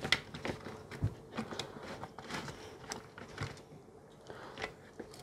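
Hands handling an opened plastic battery-charger case and its cables: scattered light clicks and knocks at irregular intervals, over a faint steady hum.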